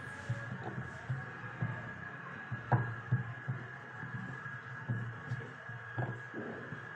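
Rolling pin working roti dough on a round wooden board: soft, irregular low thumps and rubbing, with a sharper knock of wood on wood about three seconds in and again near the end. A faint steady high hum sits underneath.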